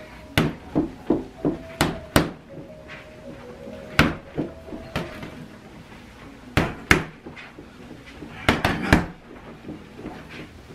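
Boxing gloves punching a free-standing heavy bag: sharp thuds in quick bursts of several punches, with short pauses between the combinations.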